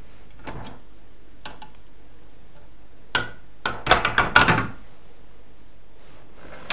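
Hard plastic parts of an electric citrus juicer clicking and knocking as it is taken apart, its reamer cone lifted off the juice container. A few scattered clicks come first, then a quick cluster of knocks about four seconds in, the loudest part.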